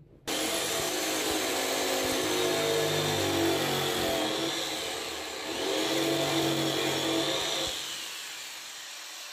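Corded jigsaw starting suddenly and cutting along the edge of a wooden cabinet panel, trimming it to fit against a wall. The cut eases briefly around the middle, then about two seconds before the end the saw drops to a lighter, quieter run.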